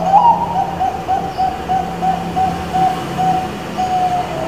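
Zebra dove (Bangkok perkutut) cooing its song: a rising opening note, then a run of about a dozen quick, even coos, and a longer drawn-out note near the end.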